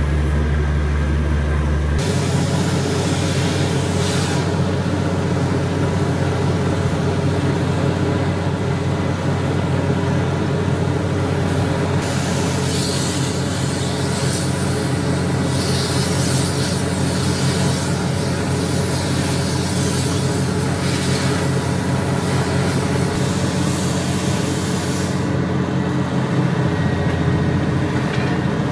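Truck-mounted borewell drilling rig running under load, its engine and air compressor giving a loud, steady drone while the drill rod turns in the hole and mud slurry is flushed out. A hiss comes and goes through the second half.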